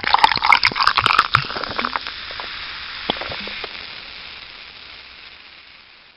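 Carbonated drink fizzing in a glass: a dense crackle of bursting bubbles, loudest at first, that gradually dies away over several seconds.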